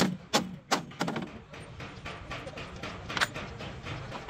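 Sharp metallic clinks and knocks of bolts and a steel bracket being handled and fitted against a steel truck chassis rail: four quick ones in the first second, fainter ones after, and a louder one about three seconds in.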